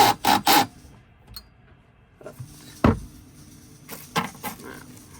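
A few sharp knocks and clicks from tools and parts being handled: a quick run of three right at the start, one heavier, deeper knock about three seconds in, then lighter clicks.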